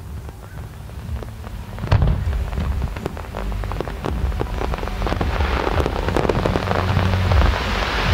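Fireworks display: a loud bang about two seconds in, then rapid crackling that builds into a dense, continuous fizzing crackle of crackle-star shells.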